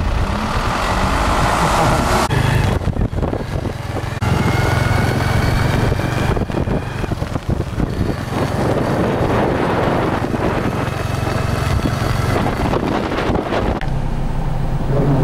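A car driving along a wet road, heard from inside the cabin: a steady engine and tyre rumble with wind buffeting the microphone.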